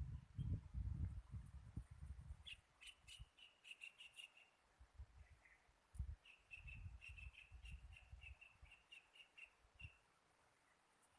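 A small bird chirping rapidly in two quick runs, the second longer, over faint low rumbling thuds.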